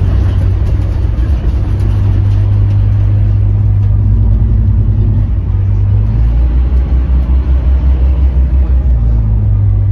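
Scania K310UB city bus's rear-mounted diesel engine running under way, heard inside the passenger cabin as a deep steady drone. About six seconds in the engine note drops lower and pulses for a few seconds, then rises again near the end.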